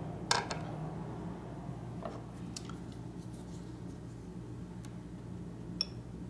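Handling clicks of a steel M3 trench knife being picked up off a wooden table and laid on a glass-topped digital scale: a knock just after the start, a few faint ticks, and a sharp click near the end as it meets the glass. A steady low hum runs underneath.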